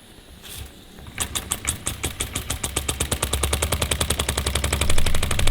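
Wormar Trojan toy steam engine starting up on steam about a second in: a rapid run of exhaust beats that quicken steadily and grow louder as the engine gathers speed.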